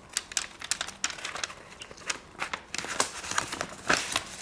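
Paper instruction booklet being handled, its pages turned and rustling, making a run of short, irregular crinkles and crackles.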